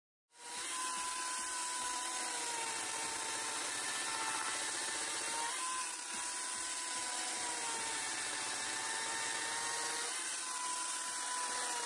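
Two-stroke chainsaw running at high revs and cutting into a cedar log, roughing out the outside of a dugout canoe hull. It comes in just after the start and holds a steady high pitch, dipping briefly twice.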